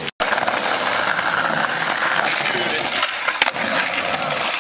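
Skateboard wheels rolling over concrete paving slabs, a steady gritty rumble, with a few sharp clacks of the board about three seconds in.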